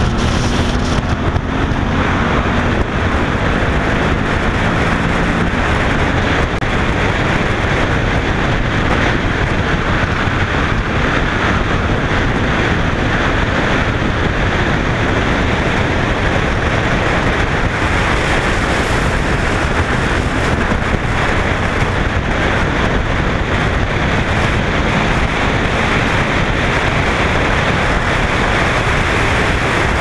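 Motorcycle riding at road speed, with wind rushing over the mounted camera's microphone as a loud, steady rush. The engine's running note comes through in the first few seconds.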